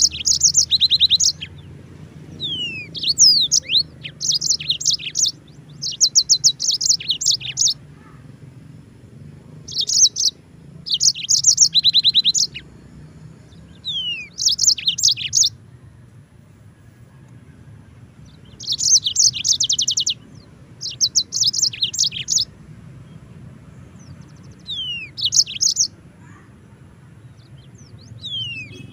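Yellow-fronted canary (Mozambique canary) singing: phrases a second or two long of rapid high trills mixed with quick downward-slurred whistles, repeated about ten times with short pauses between.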